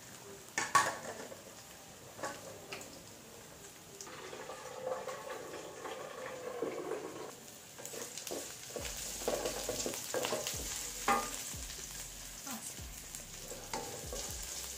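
Chopped onions and green chillies sizzling in hot oil in an aluminium kadai, stirred with a wooden spatula that scrapes and knocks against the pan. The sizzle grows stronger about halfway in.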